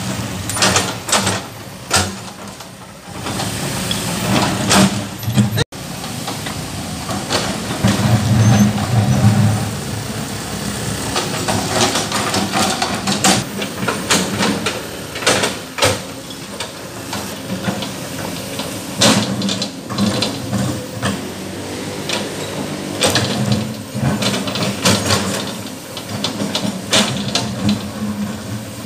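Car engines running at low speed as cars creep past one after another, over a steady background of traffic noise, with occasional sharp knocks.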